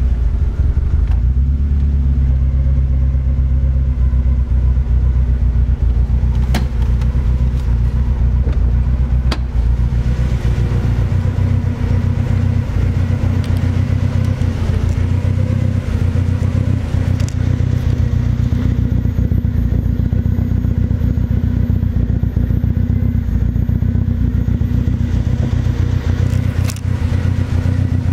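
Toyota AE86 Trueno's 4A-GZE four-cylinder engine idling steadily during a warm-up, in first gear, with a slight ticking noise; its low tone changes a little about ten seconds in. The engine is due for a rebuild, and the owner thinks the ticking means something is wrong.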